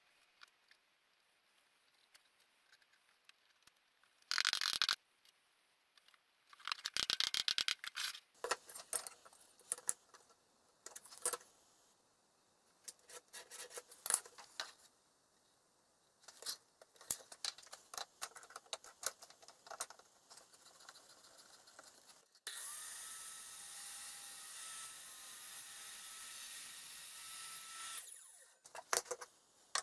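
Workshop work on chipboard panels: taps, clicks and scrapes of handling and marking the pieces, with short bursts of a power tool about four and seven seconds in. From about 22 seconds in, several seconds of steady power-tool noise cut off suddenly.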